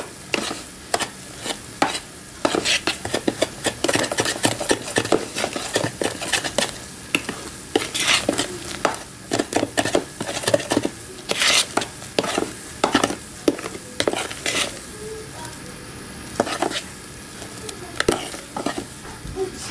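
Metal spoon stirring a thick semolina batter in a bowl, scraping and clicking against the bowl's sides in an irregular run of taps.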